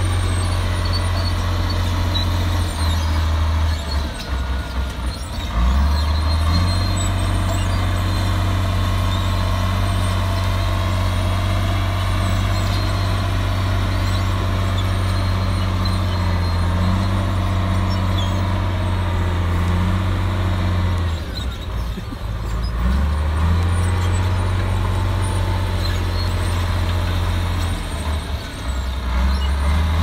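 Komatsu D53A crawler bulldozer's diesel engine running hard as it works dirt, a loud deep drone. The drone drops away briefly and comes back three times, about four seconds in, about twenty-one seconds in and near the end.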